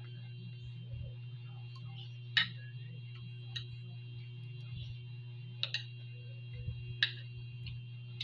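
Metal spoon and fork clinking and scraping against a ceramic dinner plate: a few sharp clinks with a short ring, the loudest about two and a half seconds in, over a steady low hum.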